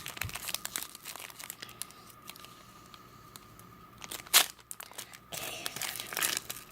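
Wrapper of a football card pack crinkling and crackling as it is worked open by hand, with one loud sharp crackle about four seconds in.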